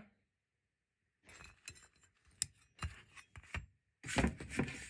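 Sterling silver belt buckle being handled, with scattered light metallic clicks, clinks and rubs that become louder and busier about four seconds in.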